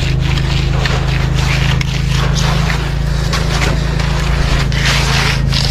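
Concrete tool scraping across wet concrete in uneven strokes, over the steady hum of an engine running.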